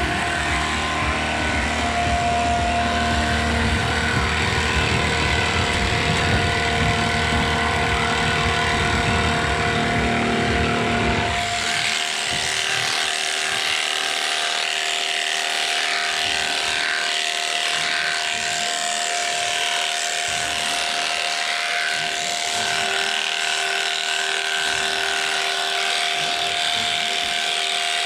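Electric sheep-shearing handpiece running with a steady whine as its cutter combs through a Merino fleece. About eleven seconds in, a heavy low rumble stops suddenly and the buzz and hiss of the cutter come to the fore.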